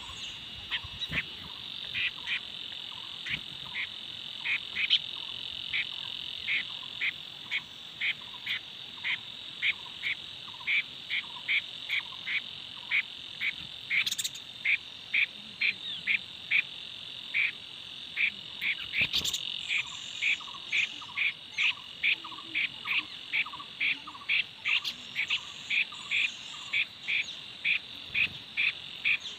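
Steady high-pitched insect buzz with a short chirping call repeated about twice a second throughout, typical of a frog and insect chorus. Two sharp clicks sound in the middle.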